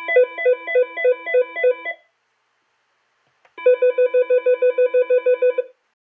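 An Aastra 6757i desk phone's speaker plays two sample ringtones in turn. First comes a warbling electronic ring repeating about three times a second for two seconds. After a pause of about a second and a half, a different, faster ring pulses about six times a second for two seconds.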